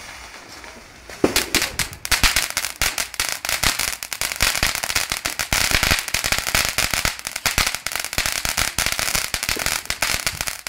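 Small ground fountain fireworks spraying sparks. A softer hiss gives way, about a second in, to a dense, rapid crackle of many sharp little pops that goes on steadily.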